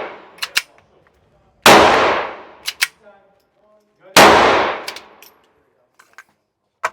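Two .22 LR pistol shots from a Glock G44, about two and a half seconds apart, each ringing out with a long echoing decay and followed by small sharp clicks.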